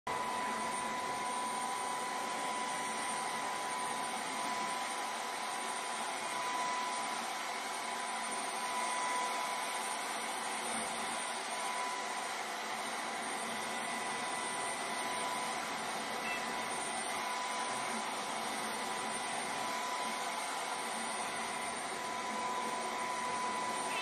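Vacuum cleaner running steadily: an even rush of air with a constant high whine.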